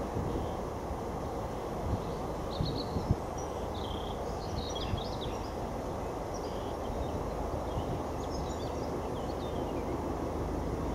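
Faint, steady low rumble of a distant approaching Class 56 diesel locomotive under outdoor ambience, growing a little stronger in the second half. Small birds chirp in short bursts, and there are a few low thumps in the first three seconds.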